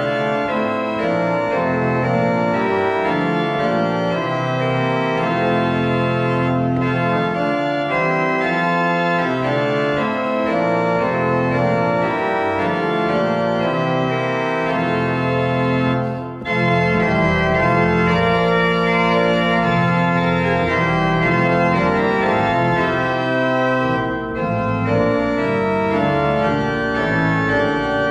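Organ music playing slow, sustained chords that change every second or two, with brief breaks between phrases about 16 and 24 seconds in.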